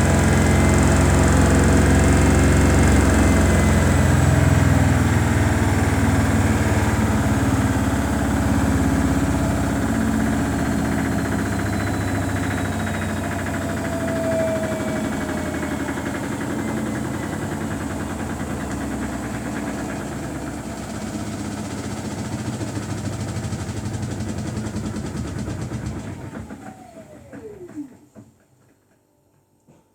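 Samsung Bespoke AI WW11BB704DGW washing machine spinning its drum during the service-mode spin test, with a steady motor hum. Near the end the motor winds down with a falling whine and the drum stops.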